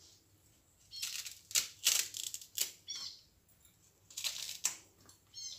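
Ripe plantain skin being torn and stripped off by hand: several short ripping rasps in two clusters, with a few brief high chirps between them.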